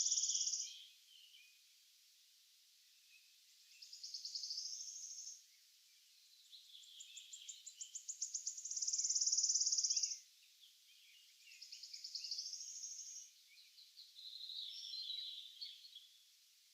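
Morning forest birdsong. One songbird sings a loud song of quickening high notes that runs into a sustained trill, finishing just after the start and again in the middle, while other birds sing shorter high phrases in between.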